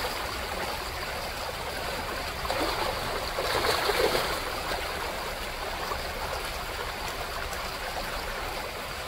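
Shallow gravel creek flowing steadily, with chum salmon thrashing and splashing at the surface in the shallows, loudest about three to four seconds in.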